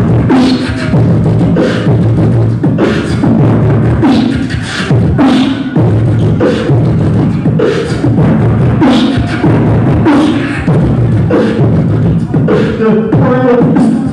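Human beatboxing: vocal percussion in a steady rhythm of kick- and snare-like strokes, with pitched vocal tones between the beats.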